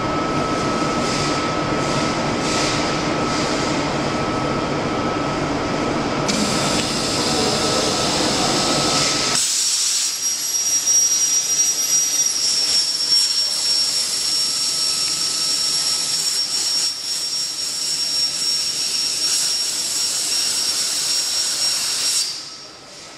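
CNC plasma cutter: steady machine noise, with gas hiss joining about six seconds in, then the plasma torch arc cutting steel plate with a loud steady hiss and high-pitched whine for about thirteen seconds before cutting off abruptly near the end.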